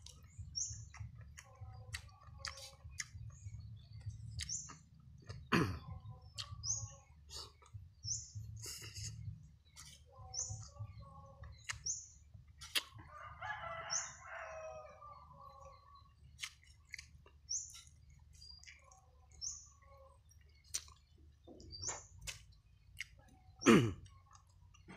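Close-up eating sounds: chewing, lip smacks and chopstick clicks, with two loud sharp mouth noises, one about five seconds in and one near the end. A small bird gives a short high chirp about once a second, and chickens cluck now and then.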